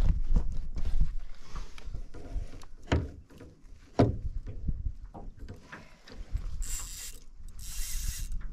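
Spinning reel being wound against a heavy hooked trout, its gears ticking, over a low rumble, with two sharp knocks around three and four seconds in.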